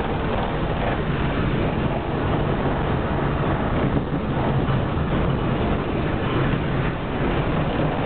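Tram running along the track, heard from inside the car: a steady rumble of wheels on rails with a low, even hum.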